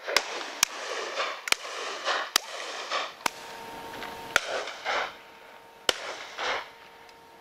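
Shotguns firing during a driven partridge drive: about seven sharp shots at irregular intervals, with a rustling, hissing noise swelling between them.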